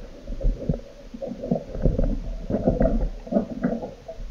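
Muffled underwater rumbling and irregular soft knocks of water moving around a camera housing.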